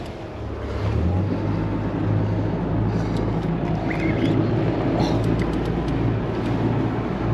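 Boat engine running steadily, its low hum stepping up about a second in as the boat is manoeuvred.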